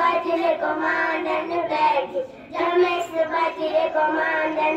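Young schoolgirls singing a song, holding long notes in two phrases with a short break about two seconds in.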